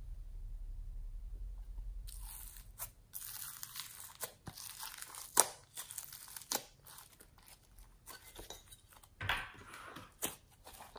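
Pink glitter slime being peeled out of its plastic tray and squeezed by hand: sticky crackling and tearing with several sharp pops, starting about two seconds in.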